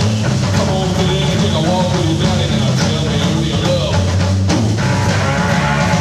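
Blues-rock band playing an instrumental stretch with slide guitar, bass guitar and drums, the guitar sliding between notes. About four and a half seconds in, a held, ringing guitar chord comes in over the rhythm.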